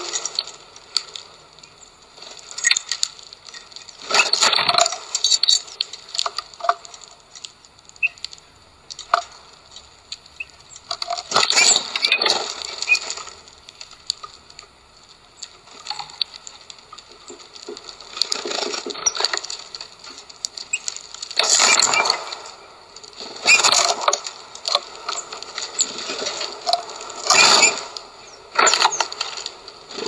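Bullfinches and a great tit hopping and pecking in a tray of sunflower seeds: irregular bursts of crackling and clicking as the seeds and husks shift and are cracked, with quieter gaps between.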